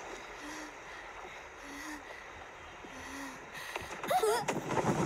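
Animated-film soundtrack: a steady rush of stream water, with three short low tones in the first three seconds. About four seconds in, a child character gives a short wavering cry and the rushing noise grows louder.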